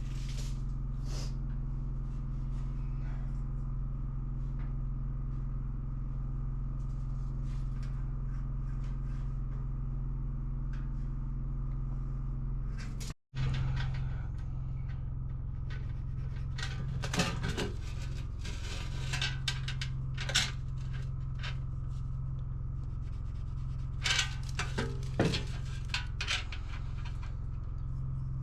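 Scattered clicks and knocks of metal stovepipe parts being handled and fitted while a woodstove is hooked up to its chimney, over a steady low hum. The sound drops out briefly about halfway through, and the knocks come in the second half.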